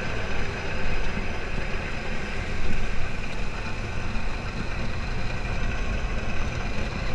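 Open off-road dune buggy driving on a dirt road: its engine running steadily under a low, even din of ride noise.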